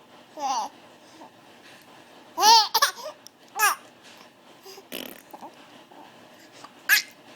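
A baby of about three months cooing: about half a dozen short, high vocal sounds that rise and fall in pitch, with pauses between them.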